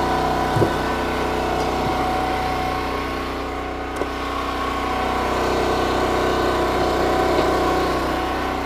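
Firewood splitter's gas engine running steadily under the hydraulic pump, with a few sharp knocks of wood as logs are split and handled on the table.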